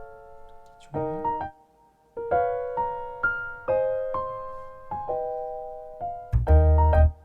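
Background music: a light piano-like keyboard melody played in short phrases with brief pauses, with a deep bass note and fuller chord entering near the end.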